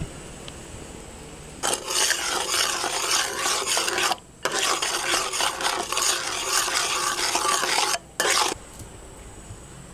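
A metal spoon stirring and scraping a dark sauce around a hot pan, a dense rasping noise. It starts sharply a couple of seconds in, breaks off briefly twice, and stops abruptly near the end.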